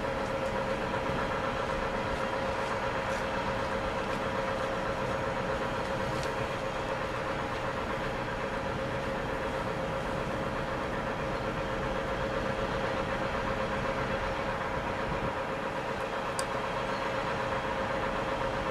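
LNER class O4 2-8-0 steam locomotive No. 63601 moving slowly toward the platform: a steady rushing noise with a held tone and no distinct exhaust beats. There is one sharp click about sixteen seconds in.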